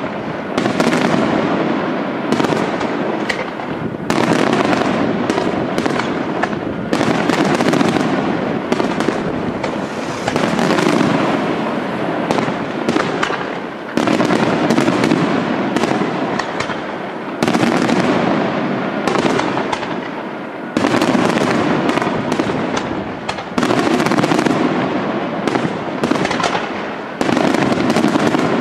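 Aerial fireworks shells bursting in a dense, continuous barrage of bangs and crackle, surging again with a fresh volley every three or four seconds.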